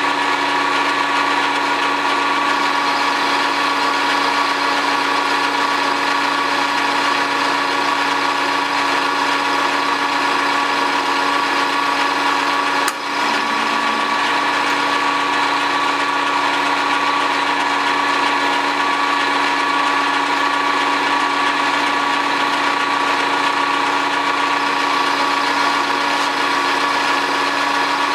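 South Bend metal lathe running steadily, its spindle and chuck spinning a drill bit, with a constant mechanical whine. A short click and a brief dip in the sound come about halfway through.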